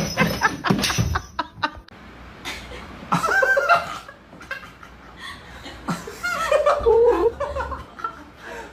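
A person laughing in short bursts, after a rapid clatter of knocks in the first second or so.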